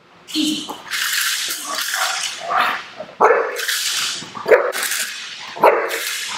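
Belgian Malinois barking on the protection alert command: a string of about eight loud, sharp barks at an irregular pace as it lunges against the leash.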